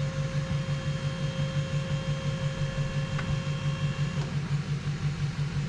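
Hydraulic pump tipping up a dump trailer's bed loaded with wood chips. A steady low hum pulses fast and evenly throughout, and a higher whine above it cuts off about four seconds in.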